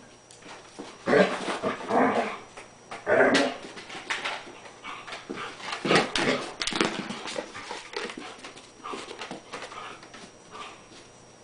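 Collie vocalizing in excited play with a bone: three loud outbursts in the first few seconds, then a run of knocks and scrapes about six seconds in, with smaller sounds after.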